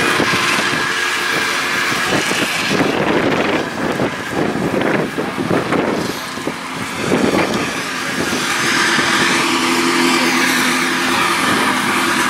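Snowmobile engine running at a steady speed; for a few seconds in the middle its sound turns ragged and dips, then it settles again.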